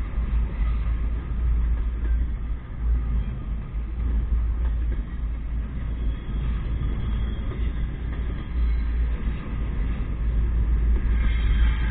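Double-stack intermodal freight train rolling slowly past at close range: a steady low rumble of the wheels on the rails.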